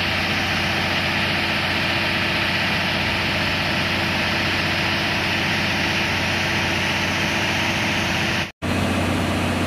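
Japanese-built KiHa 183 diesel multiple unit idling at a standstill: a steady hum with low even tones. The sound breaks off for a split second near the end.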